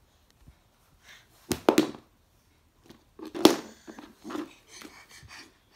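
Plastic TV remote knocking on a wooden floor as a toddler handles it: two sharp knocks about two seconds apart, with softer handling sounds after.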